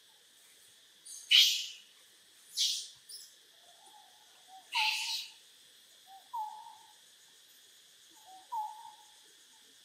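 Forest ambience: a steady high insect drone, with three loud harsh hissing bursts in the first half and four short tonal animal calls, each a brief note that falls slightly, later on.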